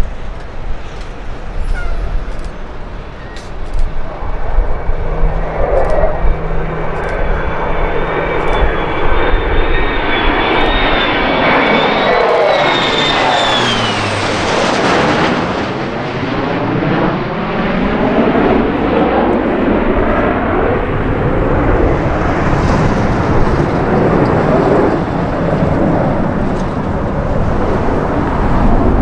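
Marine KC-130 tanker's four turboprops and formation fighter jets passing overhead: a steady drone with a high whine and a low hum that both drop in pitch as the formation passes, about halfway through.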